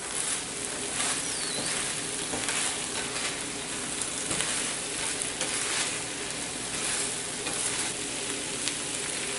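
Mushrooms and vegetables sizzling in a thick cornstarch sauce in a frying pan, stirred with a wooden spatula: a steady sizzle with light scrapes and ticks of the spatula against the pan.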